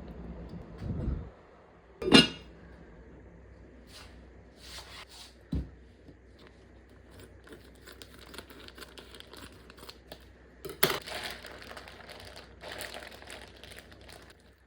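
Handling noises: a sharp clack about two seconds in and a dull knock a few seconds later, then a stretch of crinkling and rustling near the end.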